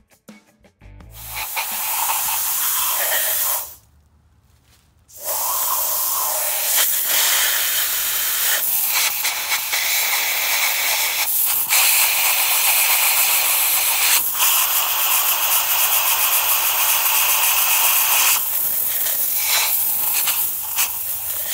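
Compressed air hissing from an air-hose nozzle as it blows concrete dust out of freshly drilled anchor holes in a concrete pier. It runs in long blasts, with a pause of about a second and a half a few seconds in and a few short breaks later on.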